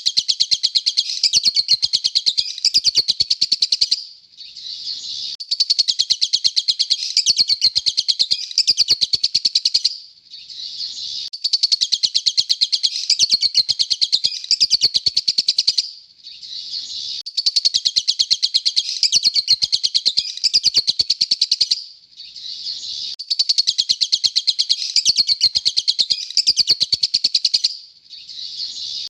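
Lovebird giving rapid, short, high-pitched chirps in runs of about four seconds separated by brief quieter pauses, the pattern repeating about every six seconds.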